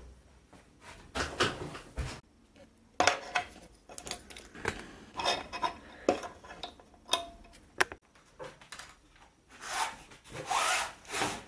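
Hard plastic roller-blind brackets being handled and fitted: a string of sharp clicks and knocks, with rustling and scraping between them and a longer scraping rustle about ten seconds in.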